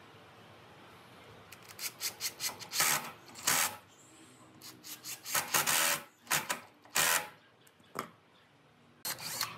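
Cordless drill working into the wood of a tabletop from below. It runs in a string of short bursts and a few longer runs of about half a second, starting about a second and a half in, with one more burst near the end.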